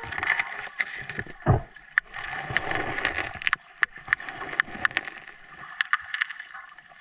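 Underwater sound heard through a submerged camera: a scatter of sharp clicks and crackles over a low water hiss, with one deep gulping thud about a second and a half in.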